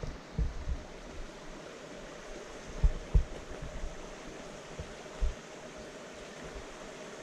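Creek water running as a steady rushing hiss, broken by a few short low thumps about half a second, three seconds and five seconds in.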